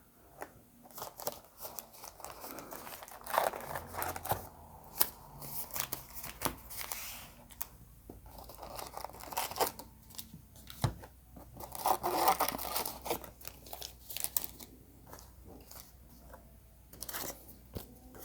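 Plastic wrapping on a hobby box of trading cards being torn and crinkled, with irregular rustling and light taps as the box and packs are handled.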